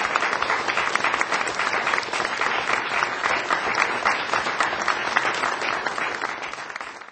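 Audience applauding: many hands clapping together in a dense, steady patter that tapers off near the end.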